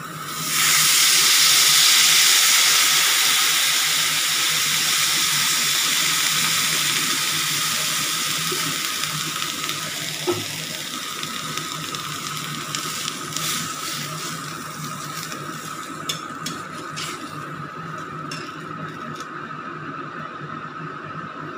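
Water poured into a kadai of hot oil and fried potato and brinjal pieces: a loud sizzle and hiss starts about half a second in, then slowly dies down to a quieter bubbling simmer. A few light clicks and taps come in the later part as a spatula stirs the pan.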